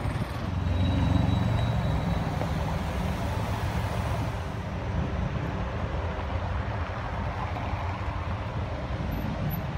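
City street traffic: a steady rumble of cars and buses going by, with no one speaking.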